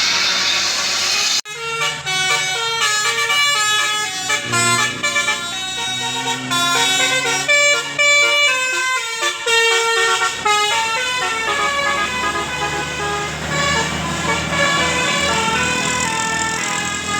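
Bus 'telolet' musical air horn, a Basuri-type multi-trumpet horn, playing a tune of quick stepped notes sounded together in chords. It starts about a second and a half in, after a brief rush of noise that cuts off abruptly.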